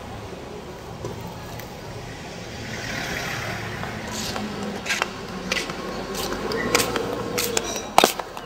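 Outdoor traffic hum with a vehicle passing about three seconds in, then a run of sharp clicks over the second half.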